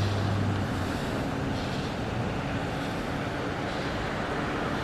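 Steady street noise with wind buffeting the microphone; a low engine hum fades out in the first second.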